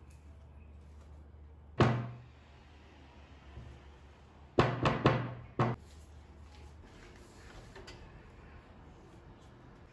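Household knocks: one sharp knock about two seconds in, then three or four quick knocks around the five-second mark, over a low steady hum.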